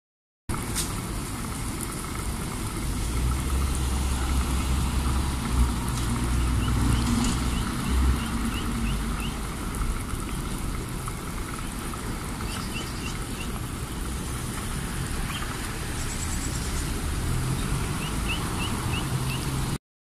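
Pond fountain spraying and splashing as a steady rush, with a low traffic rumble that swells in the first half and again near the end. A small bird gives quick runs of short chirps three times.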